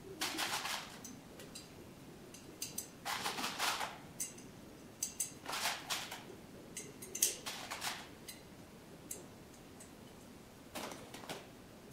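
Small metal parts clinking and rattling in about five short bursts as they are sorted and picked out of a plastic tub by hand on a workbench.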